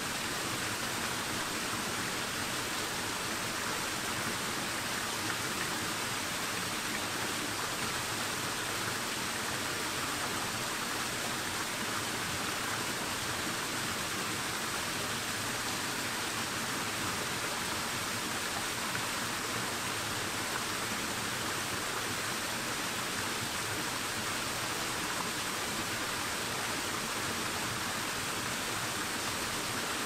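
Small freshwater stream pouring over rocks in two short cascades into a pool: a steady, even rush of falling water.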